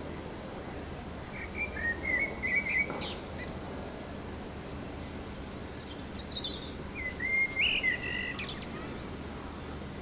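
A songbird sings two phrases, each a run of clear notes ending or broken by short high twittering sweeps. A steady low background rumble runs underneath.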